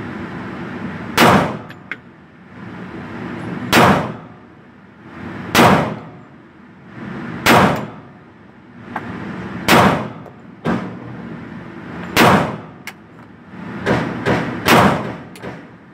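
Smith & Wesson 4516 .45 ACP pistol fired in an indoor range, slow single shots about two seconds apart, then three quicker shots near the end, each with a short echo. A steady hum of background noise runs between the shots.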